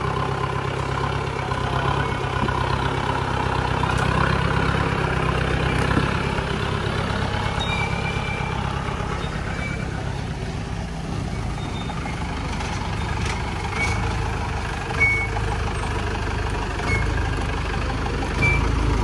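Mahindra 4x4 jeep's diesel engine running with a steady low rumble. A few short high chirps sound over it in the second half.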